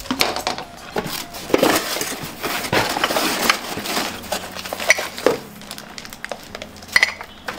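Cardboard packing and plastic wrap rustling and crinkling as wrapped glassware is handled and pulled from a box, with irregular knocks and taps throughout.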